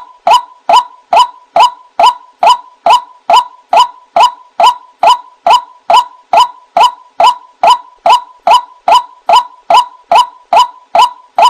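White-breasted waterhen (ruak-ruak) calling: a fast, even series of short, loud 'wak' notes, about two and a half a second, with no break. This is the repeated call that trappers play to lure the bird.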